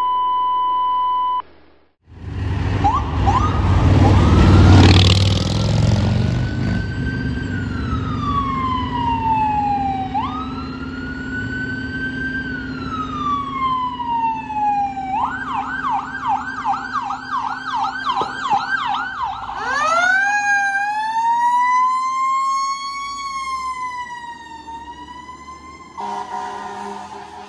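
Fire engine sirens on an emergency response. After a short steady beep, there is a loud low rumbling burst. Then a siren wails slowly up and down, switches to a fast yelp for a few seconds, and winds up again from a low pitch.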